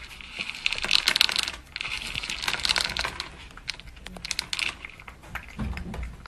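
Dry cat kibble clicking and rattling against a plastic bowl as a cat scoops it out with its paw, with the crunch of the cat eating. The clicks come in short spells of rapid clatter with brief pauses between them.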